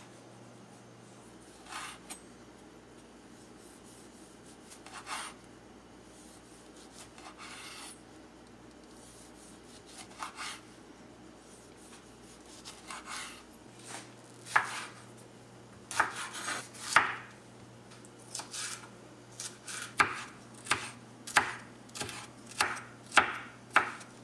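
Chef's knife cutting on a wooden cutting board: soft slicing strokes through a block of cheese and a tomato a few seconds apart, then quicker chopping with the blade knocking the board, about twice a second near the end.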